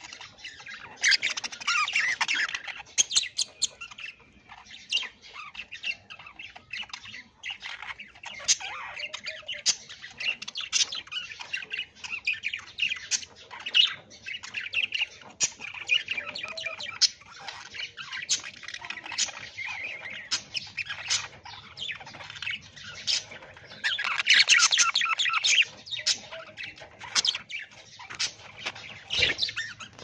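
Budgerigars chattering continuously: a stream of short chirps, warbles and squawks with sharp clicks among them. The calls grow louder in bursts a second or two in and again about twenty-four seconds in.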